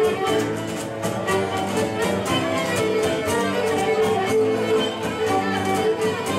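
Live Cretan folk dance music: a Cretan lyra plays a bowed melody over a laouto strumming a steady beat.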